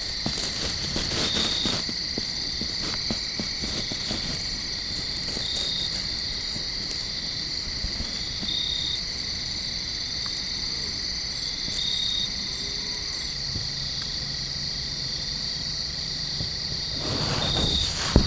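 Steady, high-pitched insect chorus of crickets, with a short chirp repeating every few seconds over it.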